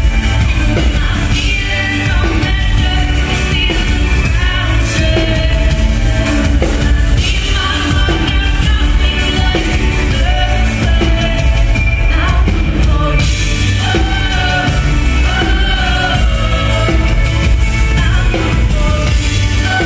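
Live electropop band playing with a steady beat: a woman singing lead over synthesizers, drums, electric guitar and heavy bass.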